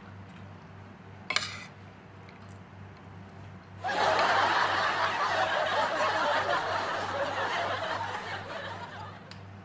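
Laughter from many voices that starts suddenly about four seconds in and fades away near the end, like an edited-in laugh track. Before it, a single short clink about a second in.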